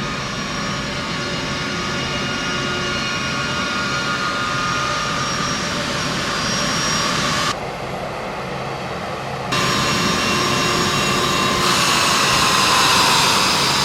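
Air Force One's jet engines (a Boeing 747-based VC-25A) running with a steady whine over a rush of noise, heard across several edited shots. Near the end one whine falls in pitch.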